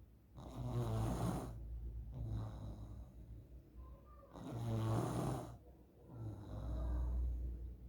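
A sleeping child snoring, which the uploader presents as one of the signs of nasal polyps. There are about two full breaths, each a loud, hissy snore followed by a lower rumbling one.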